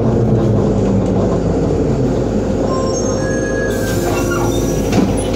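1989 ZiU-682V trolleybus running, heard from inside the passenger cabin: a steady electric motor hum and running noise. About three and a half seconds in, a broad hiss starts and ends in a sharp knock about a second later.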